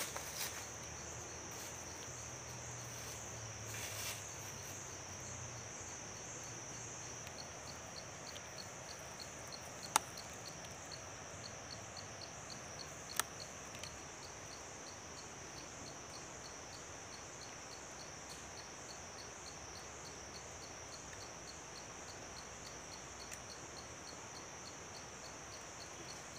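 Steady insect chorus in the forest: a shrill high drone with a regular pulsing beneath it. Two sharp clicks stand out, about ten and thirteen seconds in.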